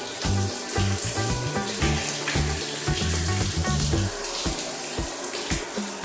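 Shower water spraying onto and splashing through the plastic cyclone filter of a Deerma M500 Pro cordless vacuum as it is rinsed out by hand. Background music with low bass notes plays for about the first two thirds.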